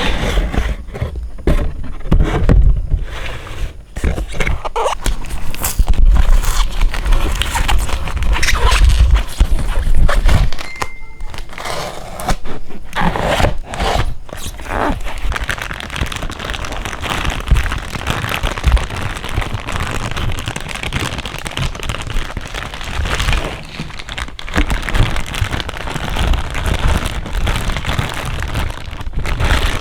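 Toy packaging being unboxed by hand: plastic wrapping crinkling, with scraping and irregular knocks and thuds from handling the box and parts.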